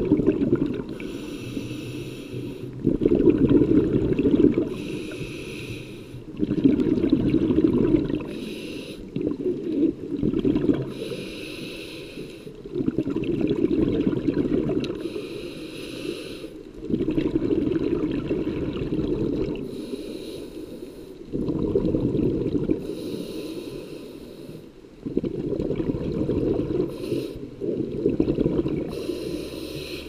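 Scuba diver breathing through a regulator underwater: a short hiss on each inhale, then a longer low bubbling rumble of exhaled air, repeating in a slow cycle about every three to four seconds.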